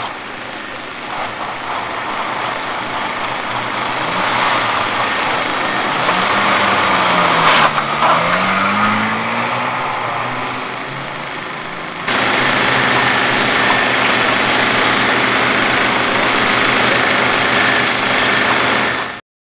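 Heavy vehicle engines running under a steady wash of noise; one engine's pitch dips and then climbs again near the middle. The sound jumps suddenly louder about two-thirds of the way through and cuts off abruptly just before the end.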